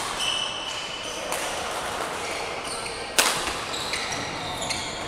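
Badminton rally: sharp racket strikes on the shuttlecock, the loudest about three seconds in, with short squeaks of court shoes on the floor.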